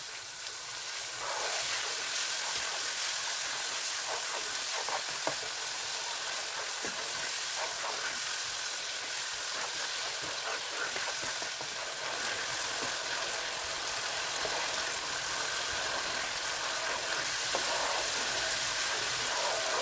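Onion-tomato masala sizzling steadily in oil in a non-stick pan, a little water poured in near the start, with the faint scrape of a spatula stirring it. This is the bhuna stage, frying the spice paste down with splashes of water.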